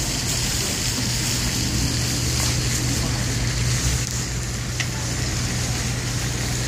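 Steady low drone of an idling engine, with a steady hiss above it.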